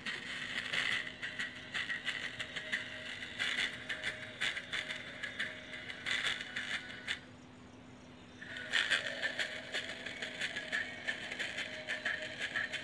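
Homemade coil-and-magnet speaker with an empty matchbox as its sounding board, playing a song faintly. The sound is thin and high, with nothing in the bass. It cuts out for about a second and a half past the middle, then comes back.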